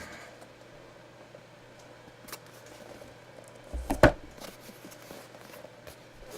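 Light handling noises with a small click, then one sharp knock with a low thud about four seconds in, the loudest sound here.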